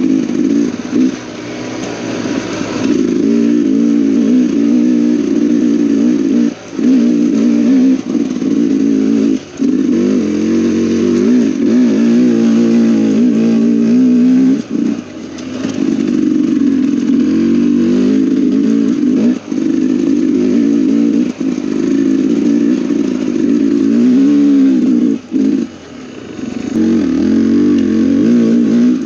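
Dirt bike engine running under constantly changing throttle, its pitch rising and falling as it revs, with brief dips in the sound several times.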